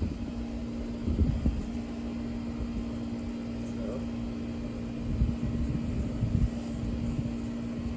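Steady low mechanical hum with two close tones, with a few dull low thumps about a second in and again around five to six seconds in.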